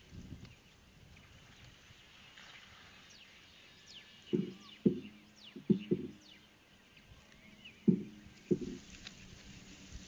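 A series of short, dull knocks close by, about seven in five seconds, starting about four seconds in, over faint outdoor background with thin high chirps.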